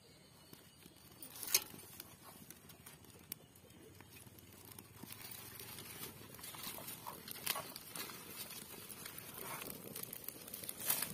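Thin dry kindling sticks crackling faintly as a fire catches in a small wood-burning stove, the crackle growing a little as the flames spread, with one sharp click about a second and a half in.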